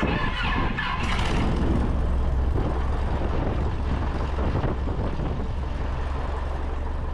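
Piper Cherokee 180's Lycoming O-360 four-cylinder engine and propeller running, heard from outside beside the wing. It comes in suddenly with more hiss for the first second or so, then settles to a steady idle with a strong low hum.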